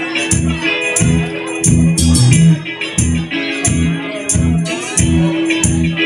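Live rock band playing an instrumental passage with electric guitars and bass over a steady, driving beat, with regular sharp cymbal-like hits on top.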